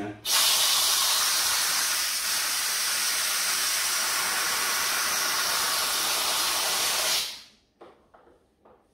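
Philips electric pressure cooker venting steam through its pressure-release valve to let out the remaining pressure after cooking: a steady loud hiss that starts just after the beginning and cuts off about seven seconds in, followed by a few faint ticks.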